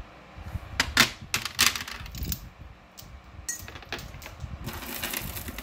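Large hard beads clicking and clacking against each other and a plastic tray as a bead necklace is handled and lifted away, in a run of sharp, uneven clicks, followed near the end by a softer rustle of jewelry being handled.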